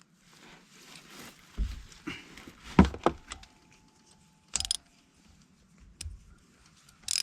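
A wrench on the ATV's oil drain plug as it is snugged down: light scraping and a few sharp metallic clicks and clatters, spaced out over several seconds.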